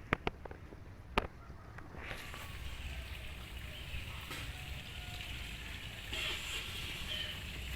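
Steady outdoor background noise with a few sharp clicks in the first second or so.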